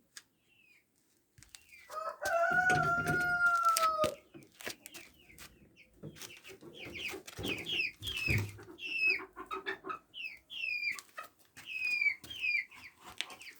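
A chicken gives one drawn-out crow of about two seconds, then a long string of short, high chirps that fall in pitch, with lower clucking beneath.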